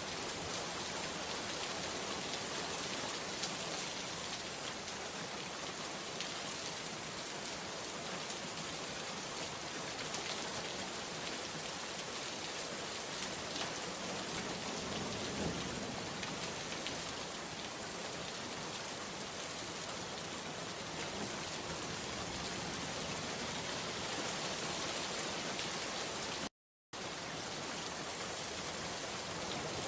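Steady rain falling in a dense, even patter. About 26 seconds in, the sound cuts out completely for a split second, then resumes.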